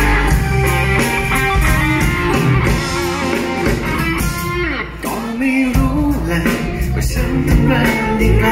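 Live rock band playing a song's instrumental opening through the PA, with electric bass guitar, electric guitar and a drum kit.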